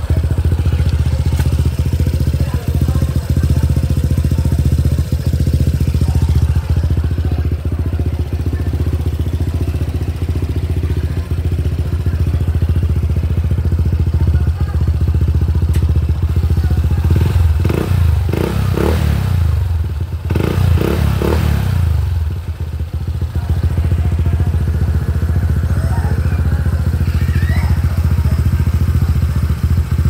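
Honda ADV160 scooter's single-cylinder engine idling through an EXOS RX-7 aftermarket exhaust, with a few quick throttle blips a little past halfway.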